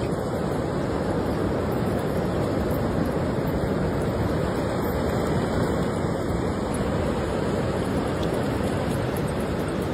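Ocean surf breaking on a beach, a steady, unbroken rushing noise.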